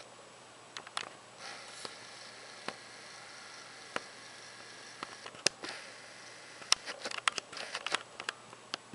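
Scattered light clicks and taps over a faint steady hiss, with a quick run of clicks near the end.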